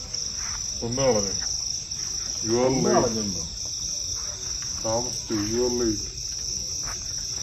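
Crickets trilling steadily in a continuous high-pitched drone, with a few short snatches of a voice about one, three and five seconds in.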